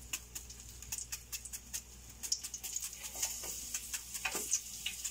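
Onion being cut with a knife in the hand, the pieces dropping into hot olive oil in a pot: irregular small crisp clicks and ticks, with a faint sizzling hiss that grows from about halfway through.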